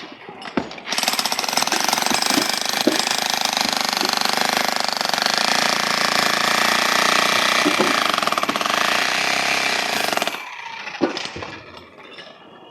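Demolition hammer chiselling into a concrete building pillar, running steadily with rapid hammering for about nine seconds. It starts about a second in and stops near the end.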